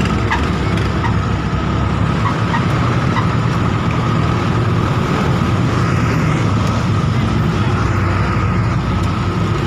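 Delivery truck driving along, its engine and road noise running steadily, with a thin steady hum above the rumble.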